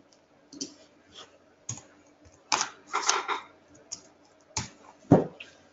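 Typing on a computer keyboard with a few mouse clicks: scattered single keystrokes and a quick run of taps about halfway through, as a value is typed into a property field.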